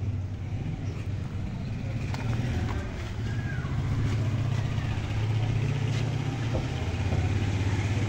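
Small motorcycle engine running with a steady low hum, getting louder through the middle of the stretch.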